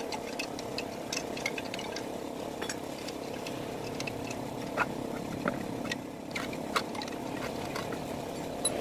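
Scattered light metal clicks and clinks of a spanner and drill press parts being handled and fitted during assembly, over a steady background hum.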